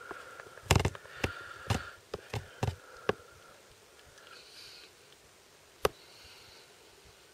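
Soft snuffling and smacking from two-and-a-half-week-old Bengal kittens suckling at their mother, with a run of sharp clicks and knocks in the first three seconds and one more near six seconds.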